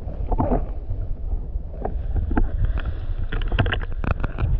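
Muffled rushing and sloshing of water heard through a camera held underwater in the shallows, a steady low rumble with many scattered clicks and knocks, more of them in the second half.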